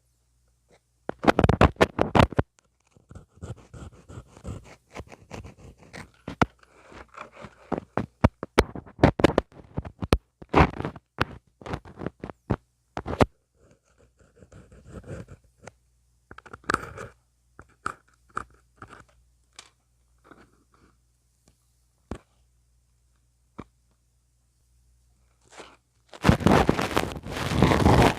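Ear-cleaning tools (ear pick) scraping and scratching right on a mini microphone: irregular crackly scrapes and sharp clicks in clusters, with a loud, dense stretch of rustling scratching near the end.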